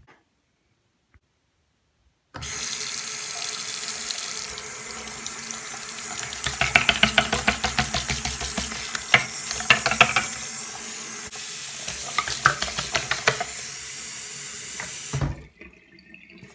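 Water running from a tap into a sink, with irregular splashing. It starts abruptly about two seconds in and cuts off abruptly near the end.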